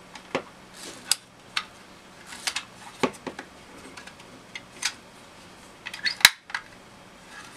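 Hard plastic car phone holder being handled and turned over: scattered clicks and taps of its plastic parts, with one sharper knock about six seconds in.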